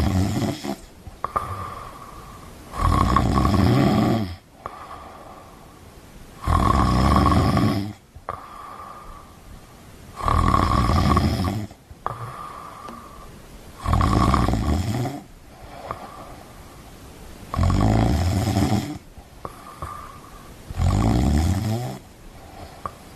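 Snoring: a loud, rattling snore about every three and a half seconds, six in all, each followed by a softer breath with a thin whistle.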